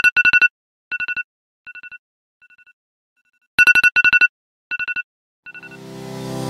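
Phone alarm tone beeping: quick beeps in bursts of four, each burst fainter than the last, starting over loud about three and a half seconds in. Music fades in near the end.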